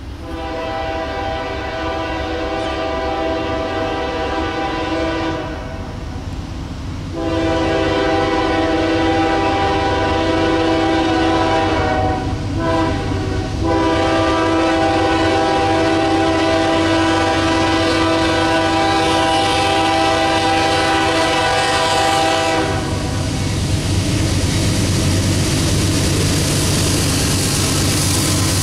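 Norfolk Southern GE Dash 9 diesel locomotive blowing its air horn in the grade-crossing signal of long, long, short, long blasts. After the horn stops, the locomotives' diesel engines and the train's wheels carry on with a loud, steady rumble as they pass.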